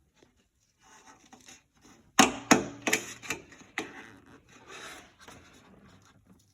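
Plastic body trim and its retaining clips being worked off a car: rubbing and scraping, then a quick run of sharp clicks and knocks about two seconds in as the trim comes loose.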